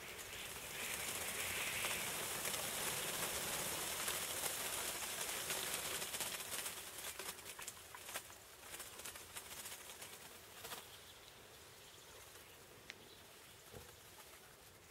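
Rushing whoosh of a large flock of starlings' wings passing close overhead, with scattered crackling clicks. It swells about a second in and fades away after about seven seconds.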